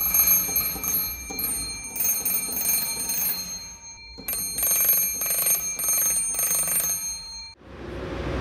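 Electric bell of an early coherer wireless receiver ringing in short and long bursts as the transmitter's telegraph key is pressed and released, like Morse code, with a pause a little after four seconds. Near the end the ringing cuts off and the low hum of a railway station takes over.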